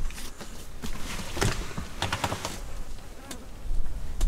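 Flies buzzing close by in short passes, strongest about one and a half seconds in and again around two seconds in, over a steady low rumble.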